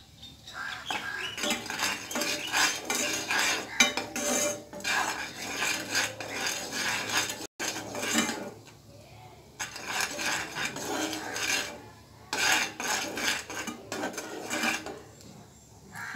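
A metal spoon stirring milk in a saucepan, clinking and scraping against the pan in bursts with short pauses.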